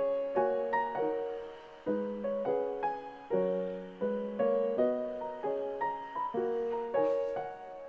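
Background piano music: a slow, gentle melody of single notes, each struck and fading, about two a second.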